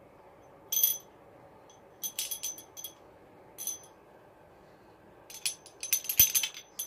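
Small hard plastic craft items rattling and clinking as a toddler handles them, in short separate bursts with a denser cluster near the end that includes one knock.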